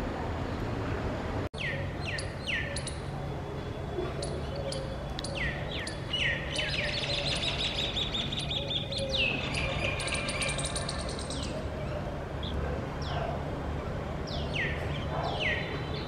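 Green bee-eaters calling: groups of short, high chirps that slide downward, with a fast trill in the middle. A steady low hum sits underneath.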